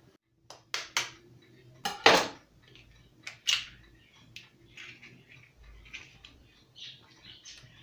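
Sharp taps and clinks against ceramic bowls as an egg is knocked on the rim of a bowl and cracked into minced meat. The loudest knocks come about two seconds in, followed by lighter taps.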